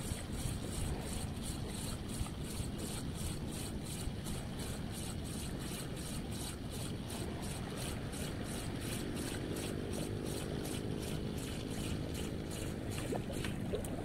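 Spinning reel being cranked on a lure retrieve, a steady ticking of about three to four clicks a second, over wind rumble on the microphone. A low steady hum joins about two-thirds of the way through.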